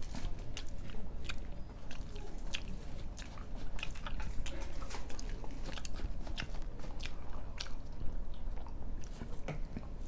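A person chewing soft paratha flatbread with egg, mouth clicking and smacking in an irregular run of sharp little clicks.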